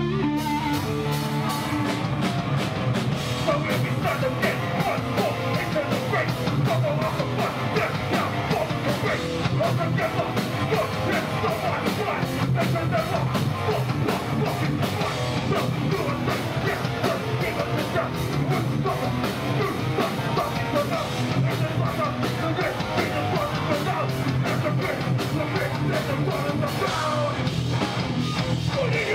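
Live punk band playing: distorted electric guitars, bass and drums, with a vocalist shouting over them. A held chord gives way to the full band about a second in.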